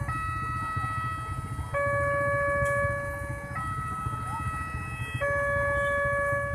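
Railway level-crossing warning siren sounding a two-tone alarm, alternating between a higher and a lower note held about 1.8 seconds each, with the low rumble of idling traffic underneath.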